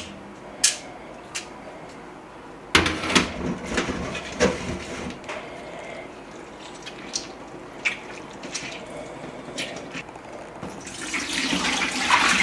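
Scattered knocks and clatter of things being handled at a kitchen sink, then tap water starting to run into the sink near the end.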